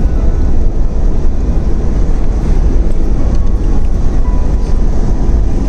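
Steady road and engine rumble inside a moving car's cabin on a paved highway.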